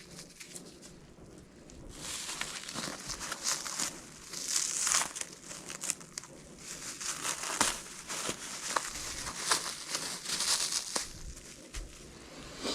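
Plastic packaging crinkling and tearing as it is handled and pulled off, in several separate bursts with small clicks and taps between them.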